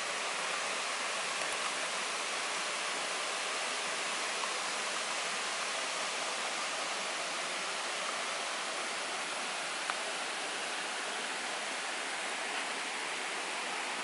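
Steady, even rush of flowing water in a waterfall stream.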